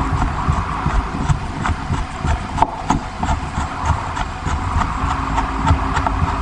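A screw being driven into a ceiling tile: many small irregular clicks and knocks over a steady low mechanical hum.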